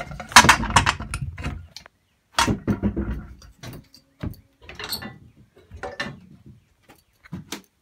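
Scooter wheel and metal parts being handled, clicking and rattling. The clatter comes in two dense bursts, in the first second and again about two and a half seconds in, followed by scattered single clicks.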